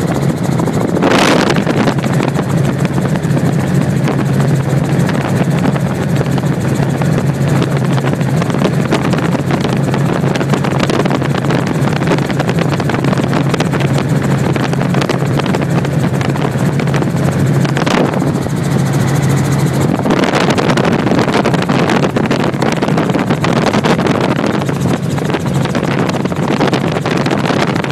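Helicopter heard from inside the cabin: a loud, steady drone of engine and rotor noise with a constant low hum, its sound shifting slightly about eighteen to twenty seconds in.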